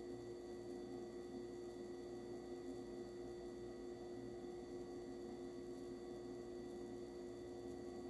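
Oven running while baking: a steady, unchanging hum with a faint high whine above it.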